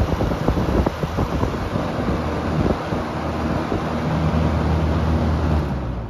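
1981 Lakewood P-223 20-inch box fan running on high speed, its airflow rushing over the microphone with uneven buffeting. The air noise settles into a steadier hum in the second half.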